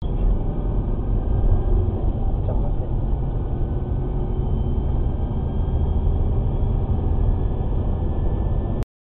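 Car road and engine noise picked up by a dashcam inside a moving car: a steady low rumble that cuts off abruptly near the end.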